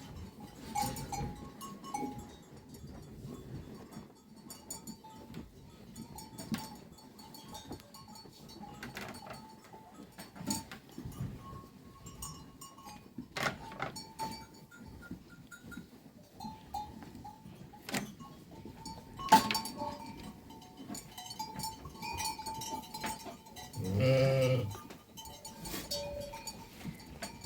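A flock of sheep, their bells clinking and jingling now and then, with one loud bleat about 24 seconds in.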